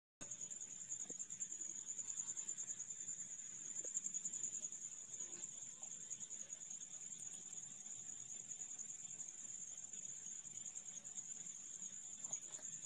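Faint, steady high-pitched trill of crickets.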